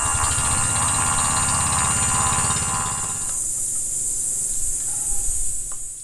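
Motorcycle engine idling with a steady, even pulse, its sound thinning a little about halfway through.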